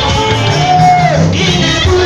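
Live church band music with a man singing through a microphone over a steady beat; a voice holds one long note that slides downward about a second in.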